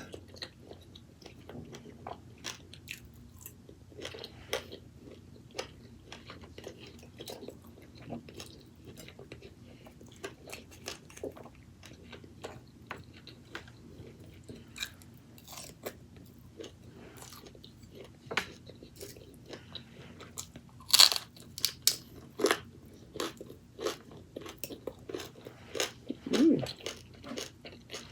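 A person chewing and biting crunchy food close to the microphone: irregular crunches and wet mouth sounds, with a sharper, louder crunch about 21 seconds in.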